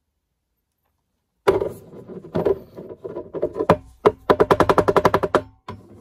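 Short burst of music that starts abruptly, with a fast stuttering run of notes at about ten a second in its second half.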